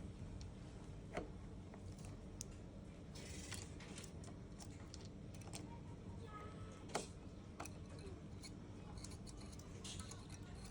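Screwdriver tightening the loosened mortise screws of a Yale digital door lock: scattered small clicks and metallic ticks, with two louder sharp knocks, about a second in and about seven seconds in.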